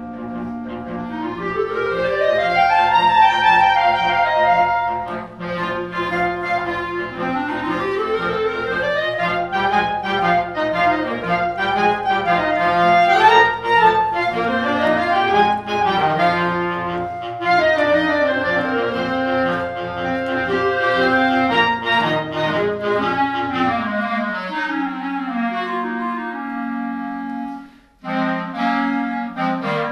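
Clarinet choir playing together, several clarinet parts moving in rising and falling runs over a held low line. Just before the end the sound drops away for a moment, then the ensemble comes back in.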